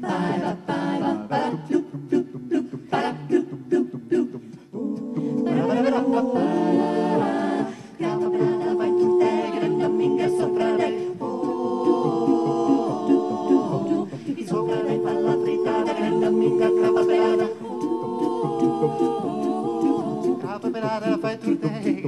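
A cappella vocal ensemble of men's and women's voices singing in harmony. For the first five seconds the voices sing short, rhythmic detached notes; after that they hold sustained chords.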